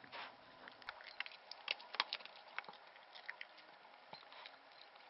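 Newborn Pomeranian puppy suckling at its mother's teat: a faint run of small, irregular clicks, busiest about two seconds in.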